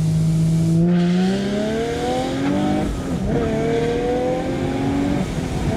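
A car engine at full-throttle acceleration, rising steadily in pitch through each gear and dropping sharply at three upshifts.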